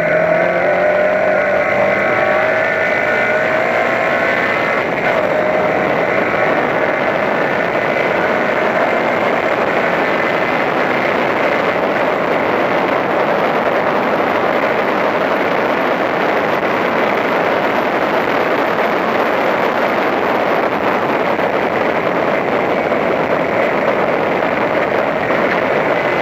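A Toyota Levin race car's engine pulling hard at full throttle, heard from inside the car. The revs climb for the first couple of seconds out of a corner, then hold high and steady down the straight under heavy wind and road noise.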